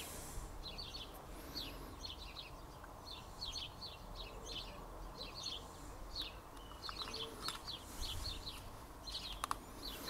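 Small birds chirping outside in a steady run of short, high chirps in little clusters, faint against a low background hum, with a couple of soft clicks.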